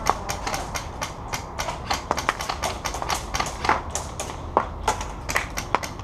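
Irregular sharp snaps of airsoft guns firing, several a second, with a few louder, nearer shots standing out.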